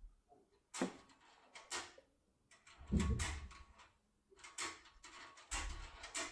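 A locksmith's emergency key tool being worked in the keyhole of a lever lock: several short metallic scrapes and clicks, with a couple of dull knocks as the lock is handled.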